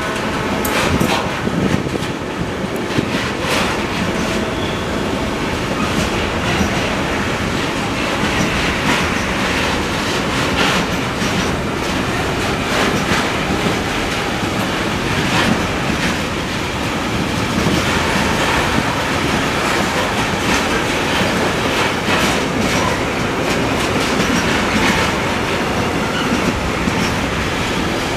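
Container freight train's flat wagons rolling past, a steady rumble with wheels clacking over rail joints.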